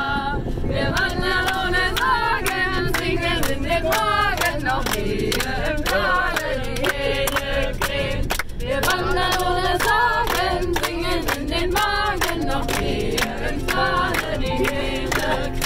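A group of people singing together and clapping along in rhythm inside a minibus.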